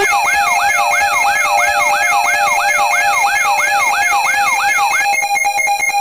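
Layered electronic siren and alarm tones: a fast repeating wail, about two and a half sweeps a second, over several steady tones. About five seconds in, the wail stops and changes to rapid pulsing beeps.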